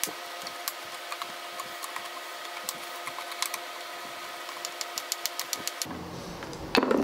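Hand screwdriver backing an old screw out of a wooden cabinet block, a string of small clicks and creaks that come quicker about five seconds in, over a steady hum. A louder knock comes right at the end.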